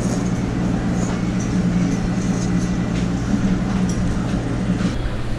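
Steady electric hum of the eatery's appliances: fans and refrigerators running under a noisy room haze. The higher of its two hum tones drops out near the end.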